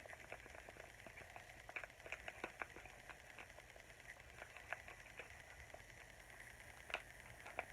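Faint, scattered small taps and scratches of coloring on a taped paper squishy, over low room hum.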